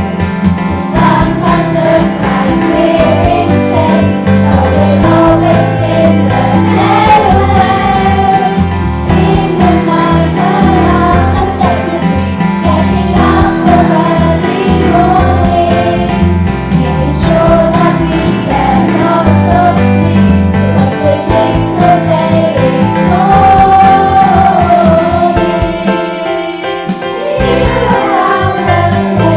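A children's choir sings a song in unison over instrumental accompaniment, dipping briefly in loudness near the end.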